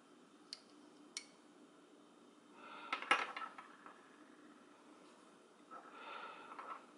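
Cast-metal pieces of a Hanayama Cast Coil puzzle clicking and clinking against each other as the puzzle is worked apart. Two light clicks come first, then a cluster of sharp metal clinks about three seconds in as the pieces come free and are set down on a hard surface. Near the end there is a softer stretch of scraping and clinking as the pieces are pushed across the surface.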